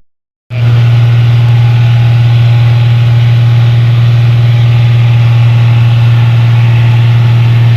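New Holland Clayson 1545 combine harvester's diesel engine running loud and steady at an even speed, after a brief dropout of the sound at the very start.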